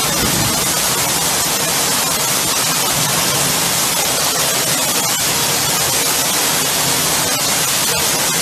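Loud, steady rushing noise with no clear pitch, spread evenly from low to very high, with a few faint clicks.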